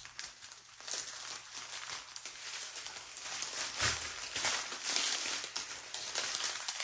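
Thin clear plastic bags crinkling and rustling as a loose bag of small zip-lock drill packets is opened and the packets are handled, a continuous crackly rustle that picks up about a second in.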